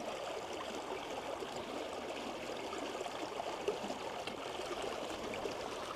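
Shallow creek water running steadily over a stony riffle.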